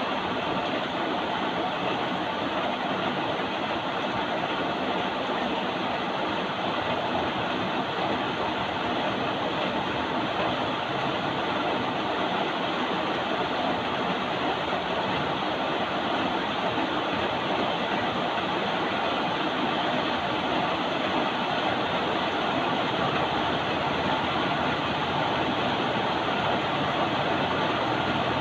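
Steady rain, an even hiss with no separate drops or other events standing out.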